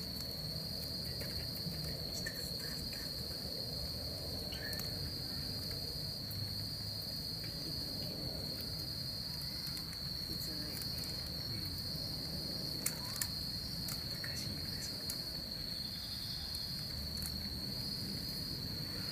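Crickets trilling in one steady, unbroken high-pitched chorus over a low background rumble, with two sharp clicks about thirteen seconds in.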